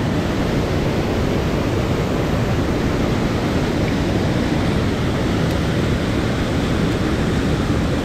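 Rushing water of a mountain stream: a steady, even noise that does not change.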